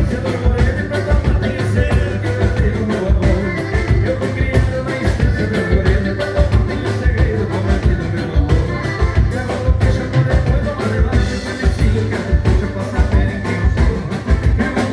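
Live gaúcho dance band playing a vanerão, with a fast, steady beat.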